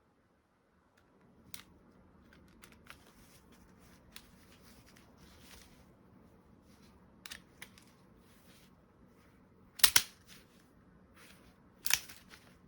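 Handling noises from a Marushin model Enfield No.2 Mk.1 revolver: scattered small clicks, then two sharp clacks of its mechanism about ten and twelve seconds in.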